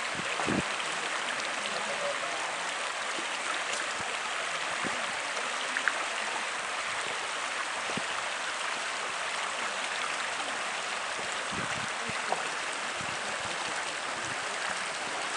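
A shallow mountain river runs over rocks with a steady rush of water. A few faint clicks sound through it.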